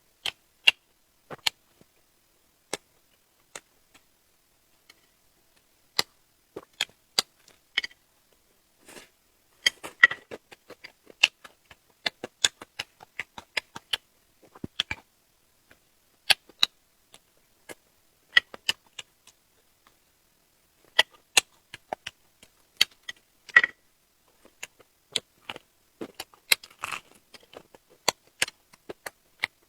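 Close-miked eating: crisp crunches and wet mouth clicks from chewing fried chicken, coming in irregular bursts with still gaps between them.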